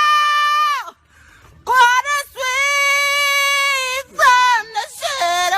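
Loud, long, high-pitched screams held at a steady pitch, one after another with short gaps between them.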